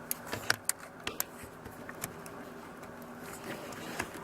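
Light plastic clicks and taps from handling a new turn signal switch and pushing its wiring connector into place on a Jeep JK steering column. There are several sharp ticks in the first second or so and a few scattered ones later, over a faint steady hum.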